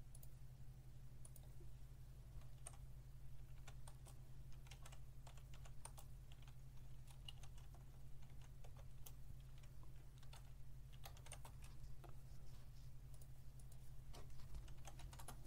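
Faint computer keyboard typing: irregular key taps in short runs, over a steady low hum.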